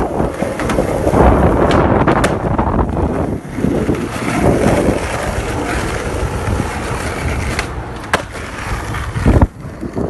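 Skateboard wheels rolling over pavement with a steady rumble, broken by a few sharp clicks and a loud knock about nine seconds in, with wind on the microphone.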